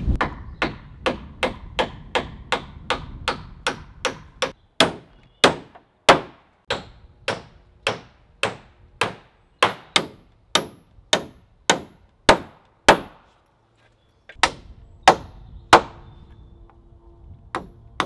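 Claw hammer driving nails into wooden roof joists: a long run of quick, even blows, about two or three a second, breaking off briefly a little after the middle and ending with a few spaced strikes.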